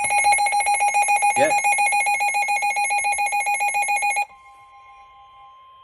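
Weather alert radio sounding its alarm: a loud, rapid electronic beeping that cuts off about four seconds in. A steady, much quieter NOAA Weather Radio warning alarm tone (1050 Hz) then continues.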